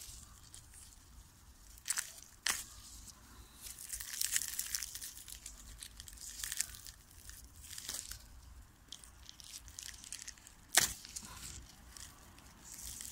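Aluminium foil and plastic wrap crinkling and tearing as they are pulled open around an air-layered root ball, in irregular rustling spells. Sharp clicks come about two seconds in, and a louder one near the end.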